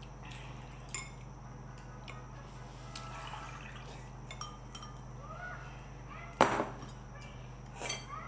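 Tableware clinking and water poured from a glass jug into a mug, with small clicks of chopsticks against bowls. A short, sudden louder rush of noise comes about six and a half seconds in, and a smaller one near the end.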